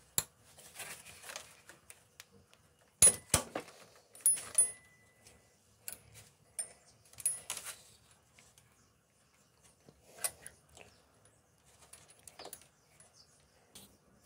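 Scattered metallic clicks, clinks and rustling of hands and hand tools working at the power-steering pump's belt and pulley, with no engine running. The sharpest clicks come about three seconds in and again about a second later.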